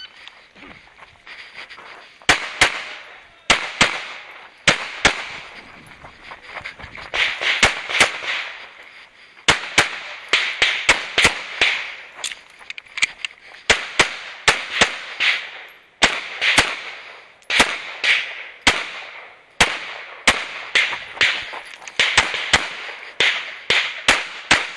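A semi-automatic pistol with a red-dot sight fired about thirty times during a timed practical-shooting stage. The shots come in quick pairs and short strings, with brief pauses between the groups.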